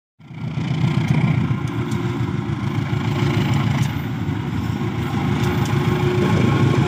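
Diesel-electric locomotive running steadily as it passes, with a loud low engine rumble and a steady hum. It cuts in suddenly just after the start.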